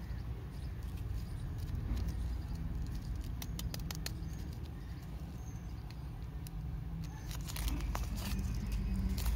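Wrapper of a toffee lollipop crinkling and crackling as fingers handle it and peel it open, in scattered sharp crackles that thicken near the end. A low steady rumble runs underneath.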